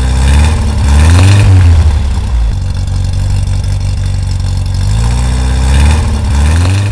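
A vehicle engine is revved up, settles back to a steady idle, then is revved up again near the end.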